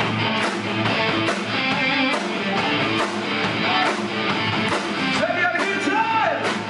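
Live rock band playing: electric guitars, bass guitar and drums with a steady beat. A sliding melody line comes in near the end.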